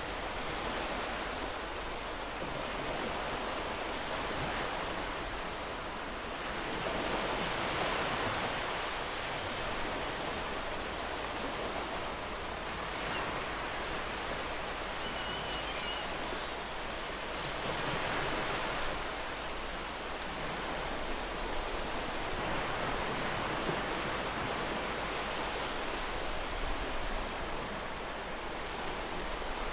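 Ocean surf breaking on a shore: a steady wash of noise that swells slightly as waves break, about every ten seconds.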